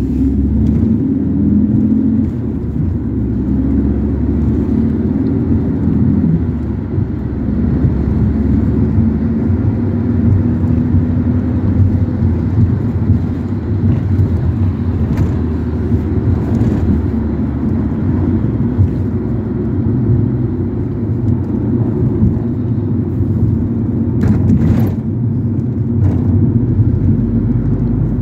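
Ford Transit's engine and road noise heard from inside the cabin while it drives along. The engine note shifts over the first few seconds and then settles into a steady drone, with a brief knock or rattle near the end.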